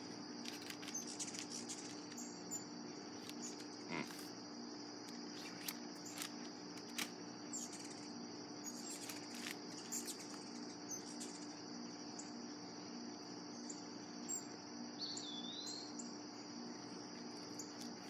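Steady high trilling of crickets with the low hum of an air-conditioning unit running underneath. Faint clicks and rustles of pipe tobacco flake being handled, and a short bird chirp about 15 seconds in.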